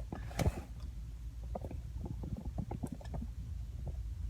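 Handling noise as a cardboard box is held and tilted: a low steady rumble with scattered light taps and knocks, and a brief brighter rustle about half a second in.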